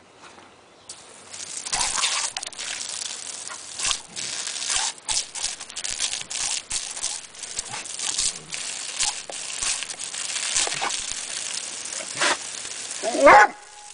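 Water hissing and spattering from a garden hose as a German Shepherd–Greyhound mix dog snaps and bites at the stream, with irregular sharp splashes and snaps. A short bark near the end.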